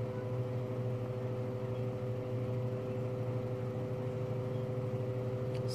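A machine running with a steady low hum, with two steady higher tones held over it.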